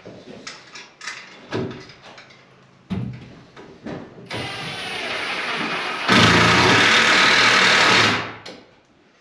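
A few handling knocks, then a hand-held power drill runs against a wooden roof truss overhead for about four seconds, growing much louder about halfway through before winding down.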